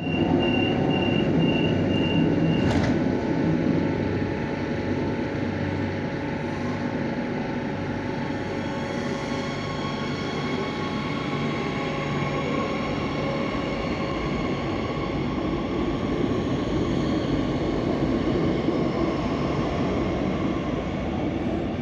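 Madrid Metro first-series 8000-class electric train departing. Warning beeps sound for the first few seconds, ending with a single knock near three seconds in, likely the doors shutting. Then the train pulls away with a rising electric motor whine over wheel and rail noise.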